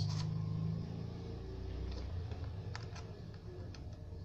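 A vehicle engine's low, steady hum that fades away over the first couple of seconds, with a few faint light clicks near the end.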